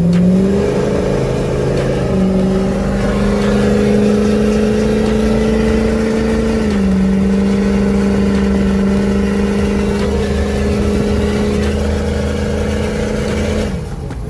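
Pickup truck engine droning steadily as it drives at highway speed, heard inside the cab, its pitch stepping down about seven seconds in.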